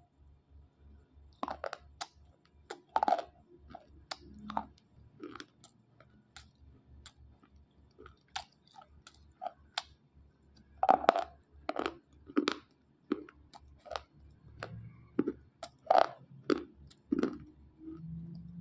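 Dry slate pencils being bitten and chewed close to the mouth: a run of sharp crunches, thickest around the middle and again toward the end.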